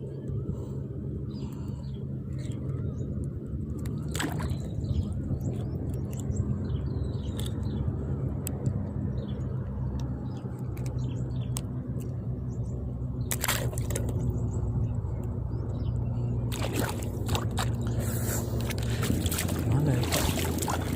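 An engine running steadily at a low, even hum, with water sloshing and a few sharp clicks.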